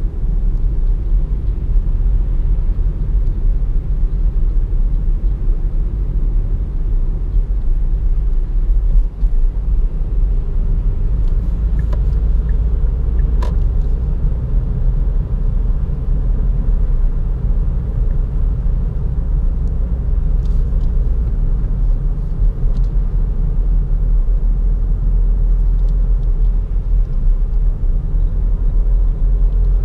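Steady low in-cabin rumble of a Kia Optima SW estate on the move: road and tyre noise over its 1.7 CRDi four-cylinder turbodiesel. A single sharp click about halfway through.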